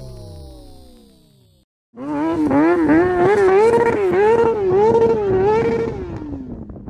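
Motorcycle engine, its pitch falling as it fades away. After a short break the engine is revved up and down about twice a second, then its pitch drops and it dies away near the end.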